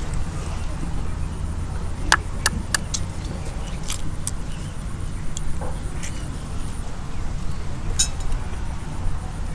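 A hot-spring-cooked egg being cracked open over a small glass bowl: a run of sharp clicks and clinks of shell and glass, three about two seconds in, two more near four seconds and single ones later. A steady low rumble runs underneath.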